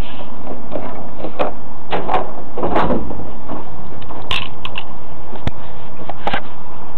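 Knocks and clatters from a dumpster lid being let down shut and the bin being knocked about, with the loudest bang a little under three seconds in and a few sharp clicks later on.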